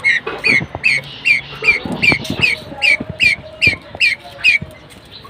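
A bird calling in a quick series of about a dozen short, high, downward-hooked chirps, about two and a half a second, stopping near the end.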